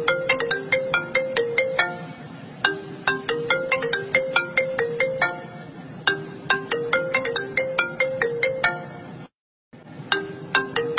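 Phone ringtone for an incoming call: a short melody of quick, bright notes that repeats about every three seconds.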